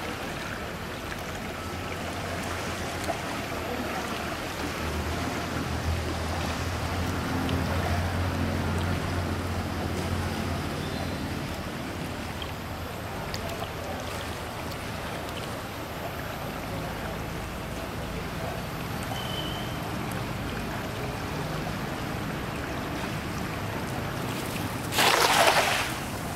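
Steady rushing outdoor background noise with a low hum that swells for several seconds. Near the end comes a loud rush lasting about a second: a cast net thrown and splashing down on the water.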